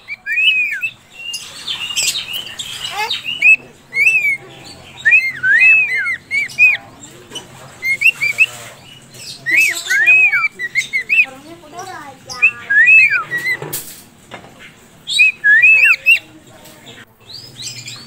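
Cockatiels chirping: short arching chirps repeated in quick clusters of two to four, with a few bursts of rustling and one sharp knock.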